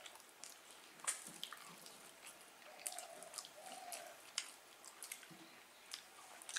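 Quiet eating by hand: fingers mixing rice with fish curry and greens on steel plates, and chewing, heard as scattered soft wet clicks and squishes.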